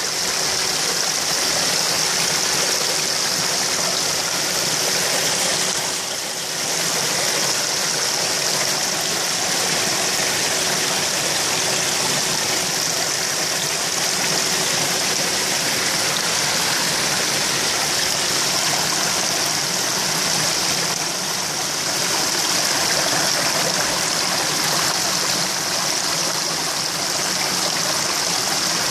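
Steady rush of water splashing into a koi pond, churning the surface into bubbles and foam. A faint steady hum sits under it during the first half.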